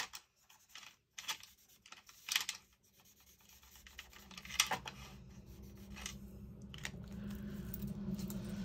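Brush tip of an alcohol marker scratching across a sheet of vellum in short, separate strokes. A low steady hum comes up from about halfway through.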